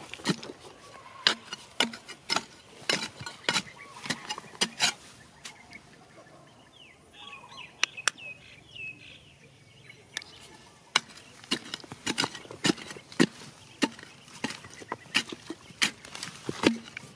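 A digging bar jabbed repeatedly into stony soil, each stroke a sharp knock or scrape against dirt and small rocks. The strokes stop for a few seconds in the middle, when a bird calls a few times, then start again.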